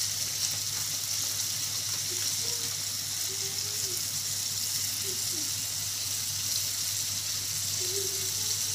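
Batter-coated snake gourd rings frying in hot oil in a pan: a steady sizzle.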